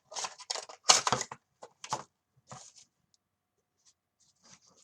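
Plastic packaging being handled, a quick run of clicks and crackles for about two and a half seconds, the loudest about a second in, then only a few faint ticks.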